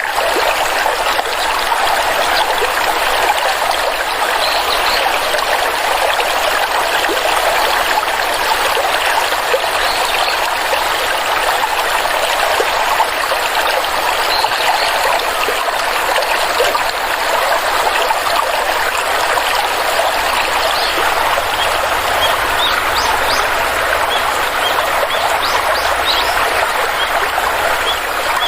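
A stream of water running and trickling steadily, with a few faint short high chirps near the end.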